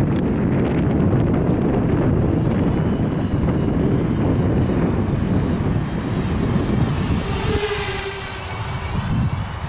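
Walkera F210 racing quadcopter's motors and propellers buzzing in flight, over a steady rumble. About seven and a half seconds in, a high whine that shifts in pitch swells and fades.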